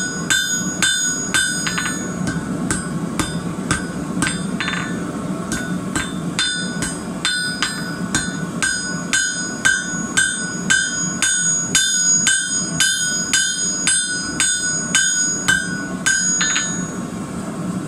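Hand hammer striking red-hot steel on an anvil, flattening the end of the bar, two to three blows a second, each with a bright metallic ring. The blows thin out for a moment around five seconds in and stop shortly before the end.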